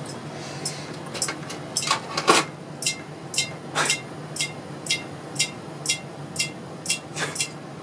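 Vintage Emerson plastic ceiling fan running with a low steady hum. A few irregular sharp clicks come early, then an even ticking about twice a second, each tick with a short ring.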